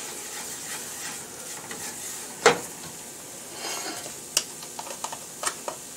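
Whisk stirring beef broth into a sizzling flour-and-butter roux in a skillet, making gravy: a steady sizzle under the stirring, with a few sharp knocks against the pan, the loudest about two and a half seconds in.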